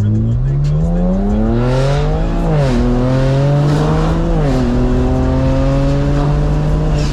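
BMW 335i's twin-turbo N54 inline-six, fitted with Dynamic Autowerx Stage 4 turbos, accelerating from a stop, heard from inside the cabin. The engine pitch climbs, drops at an upshift about two and a half seconds in, climbs again, drops at a second upshift about four and a half seconds in, then holds nearly steady.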